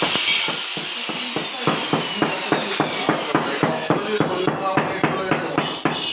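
Tiles being tapped into place with a hammer: rapid, evenly spaced blows at about three a second.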